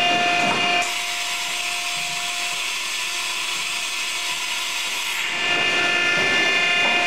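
Ikegai VMX-4 CNC vertical machining center running with a steady whine. About a second in the whine gives way to an even hiss for several seconds, then returns near the end.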